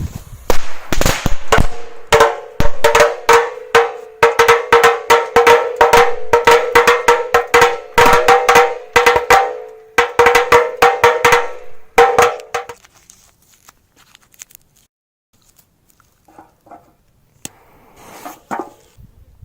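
A firecracker belt going off in a rapid, uneven string of bangs for about twelve seconds, each bang making the old canister ring with a clanging tone. After it stops, a few faint pops remain near the end.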